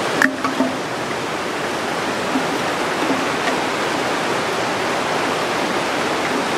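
Fast-flowing river in spate, its brown water rushing steadily over the rocks.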